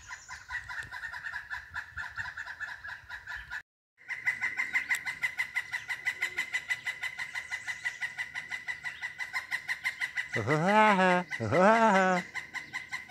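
Woodpeckers calling: a rapid, continuous pulsing chatter, with two louder, wavering calls near the end.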